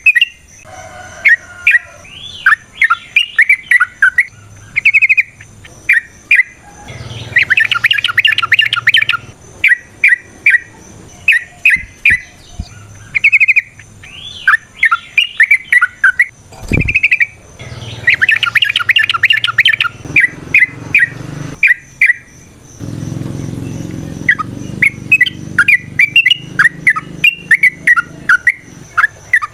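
Yellow-vented bulbul (trucukan) singing long, rapid runs of bubbling chirps, with two dense fast trills about 7 and 18 seconds in. There is a brief low thump about 17 seconds in.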